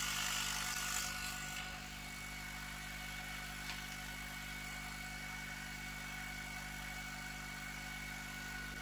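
Steady hum and faint whine of an idling diode laser engraver's fans. A hiss fades out about a second and a half in. There is a light click near the middle.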